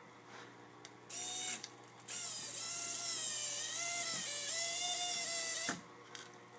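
Small electric motor of an Arduino-driven automatic fish feeder turning a pill bottle to shake out food: a short whir about a second in, then a longer whine of about three and a half seconds, its pitch wavering.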